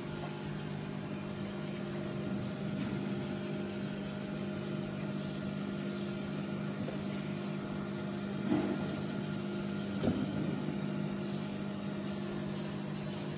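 CO2 laser cutting and engraving machine running: a steady mechanical hum with a couple of short louder knocks about eight and a half and ten seconds in.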